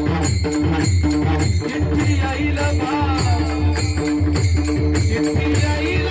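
Marathi pingla folk music: a steady drone and pulsing bass, rattling percussion on a regular beat, and a melody that glides up and down over them.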